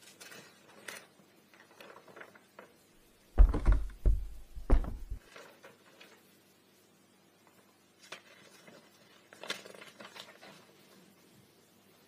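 Faint scraping and rustling, broken about three and a half seconds in by a cluster of loud, deep thuds and another thud a second later; more faint scraping follows near the end.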